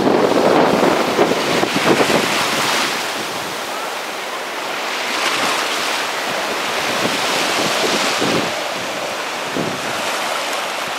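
Hurricane winds buffeting the microphone over surf breaking on the shore, rising and falling in gusts: the noise of a hurricane storm surge at the waterfront.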